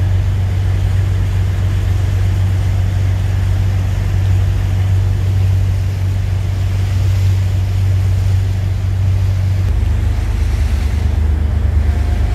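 Boat engine running steadily as a deep, loud drone, heard from on board, with a faint wash of wind and water above it. The engine note changes slightly about ten seconds in.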